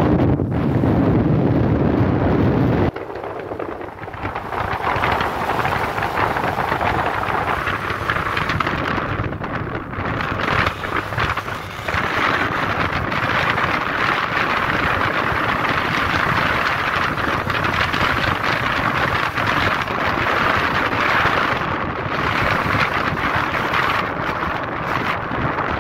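Wind rushing over the microphone of a phone filming from a moving vehicle, mixed with road and engine noise. A heavy low rumble for the first three seconds gives way to a steadier hiss.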